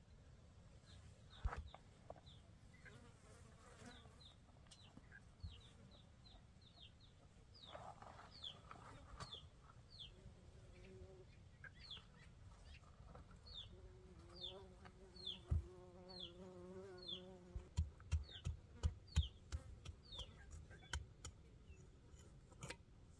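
Sun-dried mud bricks being knocked and set in place, with a quick run of knocks in the last few seconds. Small birds chirp over and over in short falling notes, and an insect buzzes steadily for a few seconds around the middle.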